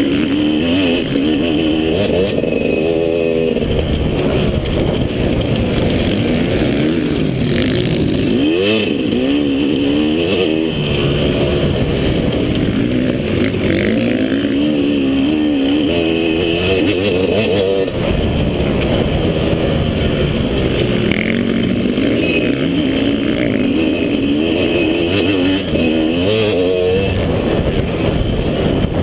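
Motocross bike's engine at racing speed, its pitch rising and falling again and again as the throttle is opened and shut and the gears change, heard from a camera mounted on the bike.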